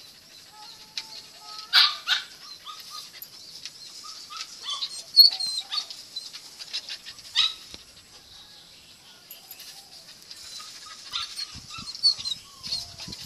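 Dog barking and yipping in short, sharp calls scattered through, the loudest about two seconds in and again near seven and a half seconds.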